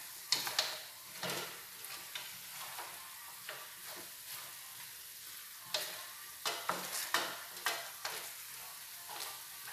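Chicken sizzling in a large aluminium pot while a wooden spoon stirs and scrapes through it, with sharp knocks of the spoon against the pot, most frequent between about six and eight seconds in.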